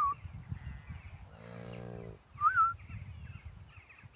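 Short whistled bird calls, rising and falling, one at the start and a louder one about two and a half seconds in, over faint chatter from other birds. Around a second and a half in comes a brief low call from farm livestock.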